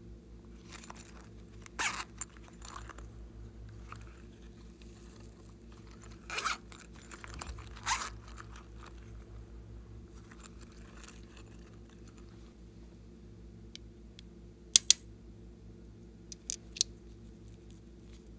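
Zipper on a fabric cactus-shaped pouch being worked open, short rasps about two, six and eight seconds in, then a few sharp clicks near the end, over a steady low hum.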